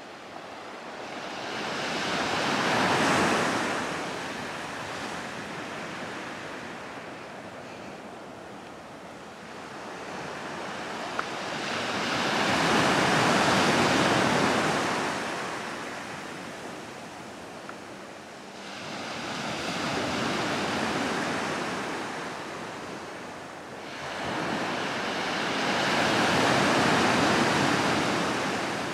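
Ocean waves breaking and washing on the shore, four slow surges of surf about six to ten seconds apart, each swelling and then dying away.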